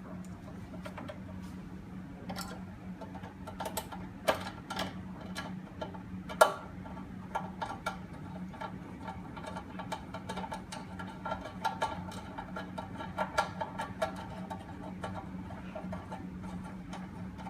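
Screws being driven to fix a door lock's mortise: irregular metallic clicks and short scraping turns over a steady low hum.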